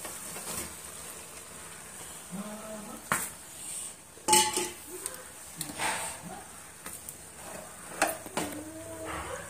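Steel plate and spatula knocking and scraping against a non-stick kadai as par-boiled rice is layered over fried chicken for biryani and spread out. There are a few sharp clinks, the loudest about four seconds in, over a faint sizzle from the pan.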